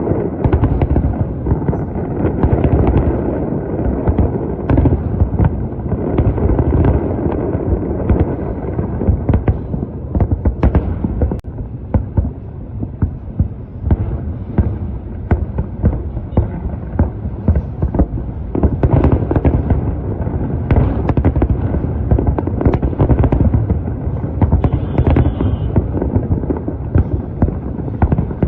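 Fireworks display: a rapid, continuous barrage of aerial shell bursts and crackling bangs, several a second, over a heavy rumbling background.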